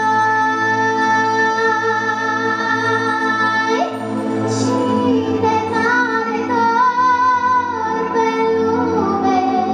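A young girl singing into a microphone over backing music, holding long notes. The note changes about four seconds in, and the later held note wavers with vibrato.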